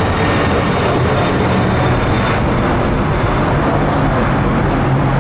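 Boeing 767 freighter's twin jet engines at takeoff power as it climbs away: a steady roar, with a faint high whine that fades out about halfway through.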